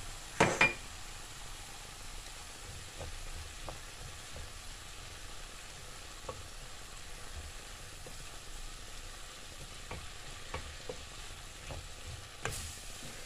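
Chicken, onion and grated carrot filling frying gently in a stainless steel pan as a spoon stirs the freshly added spices through it, with light scrapes and clicks. There are two sharp knocks about half a second in and another near the end.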